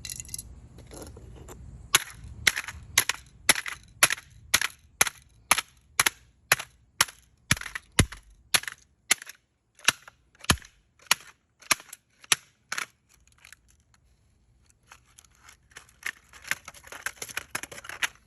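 A hammer repeatedly smashing the plastic housing of a smoke alarm: about two dozen sharp blows at roughly two a second, which stop after about ten seconds. Near the end comes a run of smaller cracks and rattles as the broken pieces are worked at.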